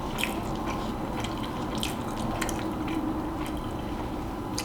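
Close-up chewing of a mouthful of adobo rice: soft, wet mouth smacks and clicks at irregular intervals.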